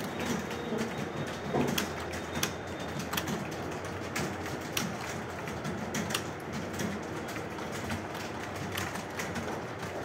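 Computer keyboards clicking as several people type at once: irregular, overlapping keystrokes.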